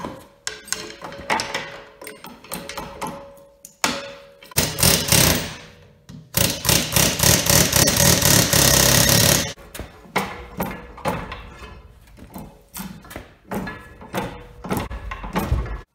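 Scattered knocks and clangs of tools on a generator's steel housing as its stator coil is forced out, broken by two bursts of continuous air-tool hammering around the middle, the second and loudest lasting about three seconds.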